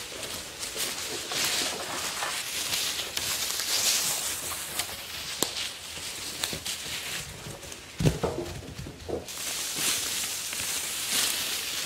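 Footsteps in dry fallen leaves with the rustle and scrape of dead wooden poles and branches being carried and dragged, and a heavy wooden knock about eight seconds in.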